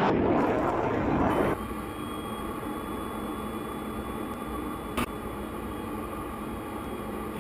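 Hellenic Air Force F-16 Block 52+ jet engine noise heard from the ground as the jet flies by. About a second and a half in it changes suddenly to the steadier, quieter hum of the jet heard inside the cockpit, with one sharp click about five seconds in.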